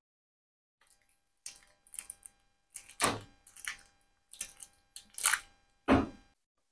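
Screw cap of a plastic water bottle being twisted open, the cap and the gripped bottle crackling and clicking in short bursts. The loudest come about three seconds in and just before the cap comes free near the end.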